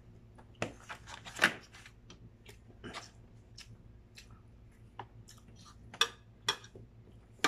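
Scattered light clicks and taps of a spoon and fork on a plate and a plastic takeout container being handled, with chewing.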